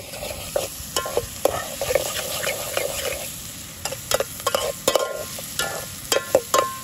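A metal spoon stirring and scraping chopped food as it sizzles in oil in a metal pot over a wood fire. Sharp clinks of spoon on pot come throughout, thickest in the second half, some with a brief metallic ring.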